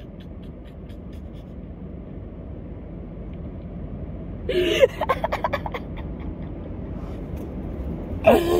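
A woman laughing: a burst of laughter about halfway through that breaks into a quick run of short laughing breaths, and another brief laugh near the end, over a steady low rumble.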